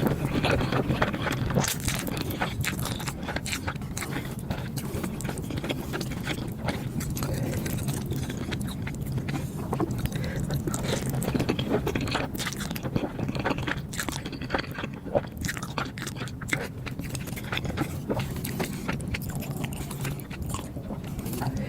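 Close-miked eating sounds: a person chewing and biting food, with frequent wet mouth clicks and smacks and occasional scrapes.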